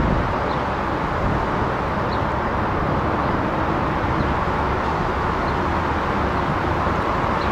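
Steady outdoor background rumble and hiss, even in level, with a few faint short high chirps.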